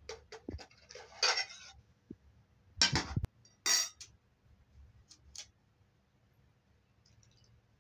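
Metal spoon scraping and clinking against metal serving trays and plates as rice and stew are dished out: a run of light clinks and scrapes, with the loudest clatters about three seconds in and a few soft clicks after.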